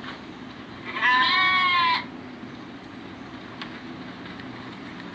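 A sheep bleats once, a wavering call about a second long, beginning about a second in, over a steady background noise.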